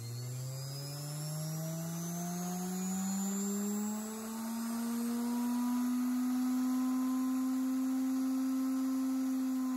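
Washing machine universal motor running off a triac (SCR) speed controller. Its whine rises in pitch over the first five seconds or so as the controller is turned up and the motor speeds up, then holds steady at speed.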